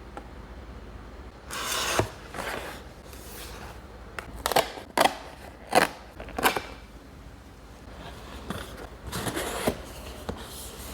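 Cardboard and plastic packaging of a blind box case being handled and opened: a burst of rustling about a second and a half in, then about five sharp snaps or clicks in quick succession, and another rustle near the end.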